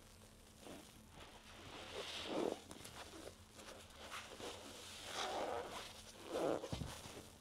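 Soaked car sponges being squeezed by hand, giving a few wet squelches, with the loudest squeeze near the end.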